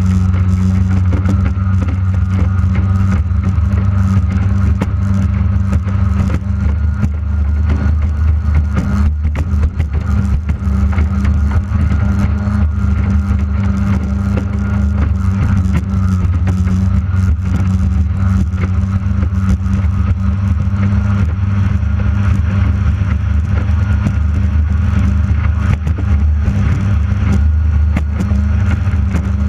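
Outboard engine of a J Hydro racing hydroplane running hard at a steady pitch during a race, heard from onboard, with water and wind rushing past the hull.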